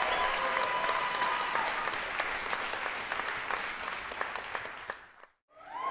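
Audience applauding, a dense patter of many hands clapping, with a held tone fading out under it in the first second. The applause fades and drops to silence near the end, then comes back suddenly.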